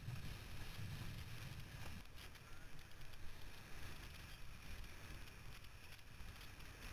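Wind rumbling on the microphone and water rushing under a windsurf board sailing across choppy water; the low rumble is heaviest in the first two seconds.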